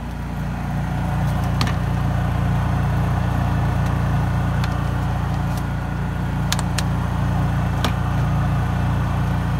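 Portable generator running steadily with a low, even hum, with a few faint clicks scattered through.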